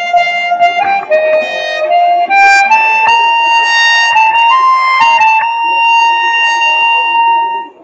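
Harmonica playing a slow tune of held notes, amplified through a microphone. The tune climbs step by step and then settles on one long held note that breaks off near the end.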